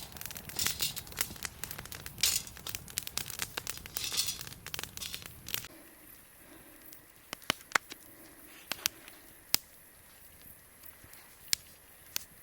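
Dense crinkling and crackling for about the first six seconds, then a quieter stretch with scattered sharp pops.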